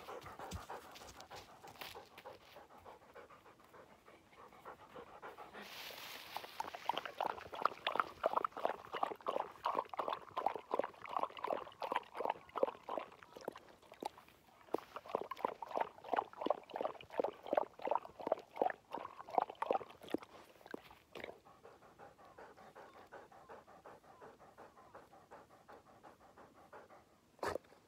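English setter at close range making quick rhythmic breath and mouth sounds with her head down at a small mug, about four a second. They come in two long runs with a short break between them.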